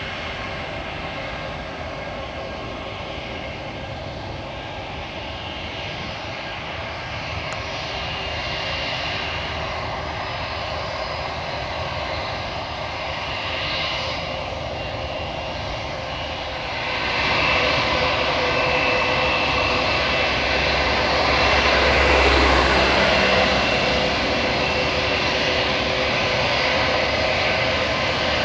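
Airbus A321-231 jet airliner taxiing, its IAE V2500 turbofan engines running at low power with a steady whine over a rushing hum. The sound grows clearly louder about two-thirds of the way through as the jet swings round toward and past the listener.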